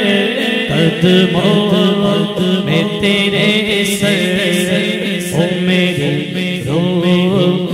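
Solo male voice singing a naat in long, drawn-out gliding phrases, with a steady low drone sustained underneath.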